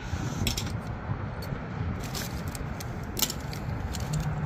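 Small loose plastic action-figure parts and weapons clicking and rattling against each other as a hand picks through them in a cardboard box: a few scattered clicks over a steady low rumble.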